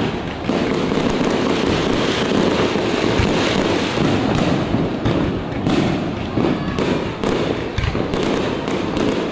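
Fireworks display: a dense, continuous barrage of booming shells and crackling bursts, several going off every second with no pause.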